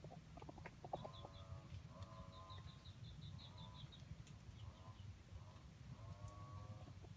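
Faint animal calls, each shorter than half a second, repeating about once a second. Runs of quick, high, small-bird chirps sound between them over a low rumble.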